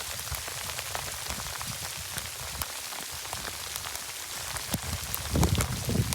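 Hailstorm: hail and rain coming down hard, a dense hiss full of sharp ticks from hailstones striking. A low rumble rises about five seconds in.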